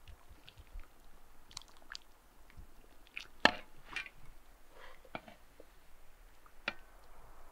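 Porcelain soup bowls knocking and clinking lightly as they are handled and set onto a metal serving tray, with one sharp knock about three and a half seconds in.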